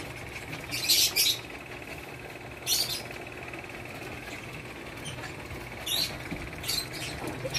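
Belgian Malinois puppies moving about in a wire cage with a plastic slatted floor: four short scratchy scrabbling noises, about a second in, near three seconds and twice near the end, over a faint steady high hum.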